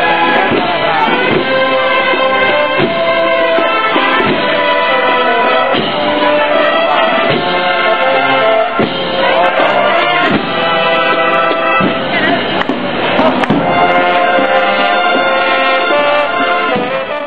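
Procession band of brass and drums playing a Holy Week march, with held brass chords over regular drum strokes.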